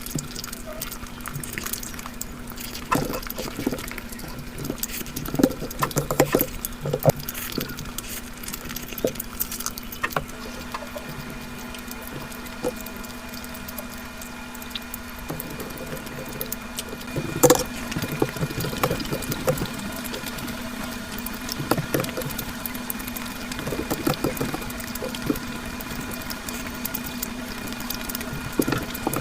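Close-miked wet eating sounds of egg curry and rice being chewed: irregular wet clicks and lip smacks, the loudest about 17 seconds in.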